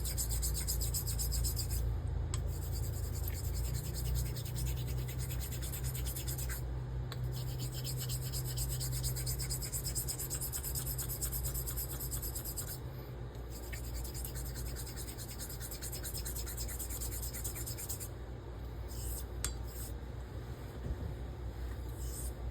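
Carbon-steel straight razor being honed on a natural whetstone: a continuous gritty rubbing as the blade strokes back and forth over the stone, with a few brief breaks. A steady low hum runs underneath.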